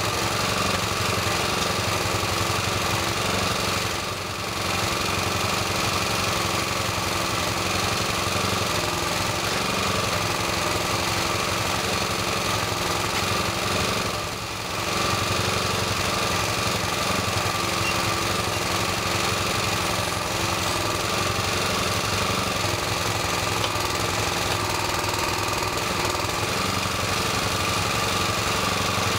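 Small engine running steadily, briefly dropping in level twice, about four and fourteen seconds in.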